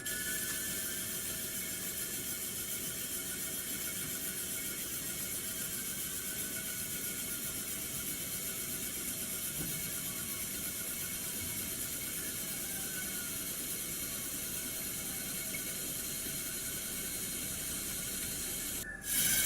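Large CNC lathe running: a steady mechanical whir and hiss, with a few faint falling whines.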